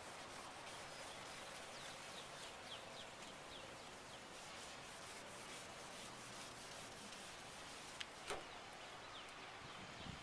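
Rag buffing toothpaste into a plastic headlight lens: faint, steady rubbing. A sharp click and a short falling squeak come about eight seconds in.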